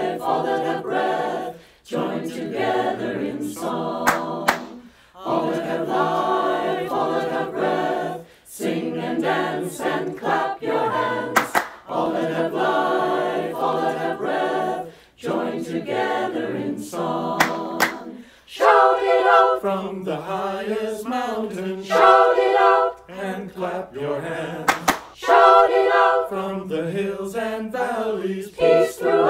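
A mixed choir of women's and men's voices singing an anthem in harmony, in phrases of a few seconds broken by short pauses for breath.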